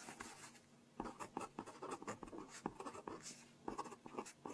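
A pen writing on paper close to the microphone, with quick irregular scratching strokes and small taps starting about a second in.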